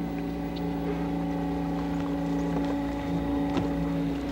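Electric trolling motor on a small bass boat running with a steady, even hum.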